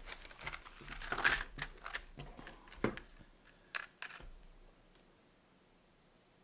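Handling of small hard objects on a desk: a cluster of clicks and rustling about a second in, then single sharp clicks near three and four seconds.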